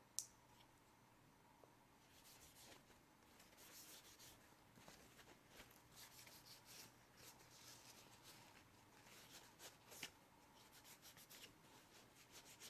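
Faint, irregular rustling and scratching of a paper towel, damp with glass cleaner, rubbed over the small aluminium body of a 2nd-generation iPod Shuffle. A single short click comes just after the start.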